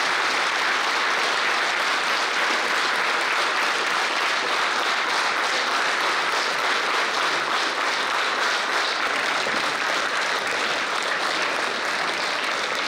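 Concert audience applauding steadily, many hands clapping together.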